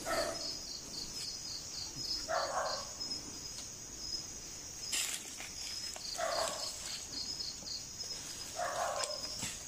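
Crickets chirping steadily, pulsing about four times a second, while a dog barks four times at intervals of a few seconds. A couple of sharp clicks are heard near the middle and the end.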